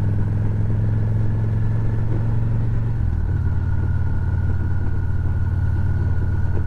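Motorcycle engine running steadily while riding. Its low note drops slightly about three seconds in.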